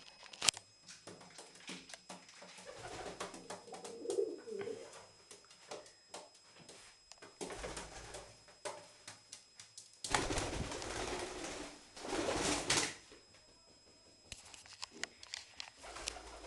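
A pigeon cooing softly a few times, among scattered light clicks, with a loud rustling stretch from about ten to thirteen seconds in.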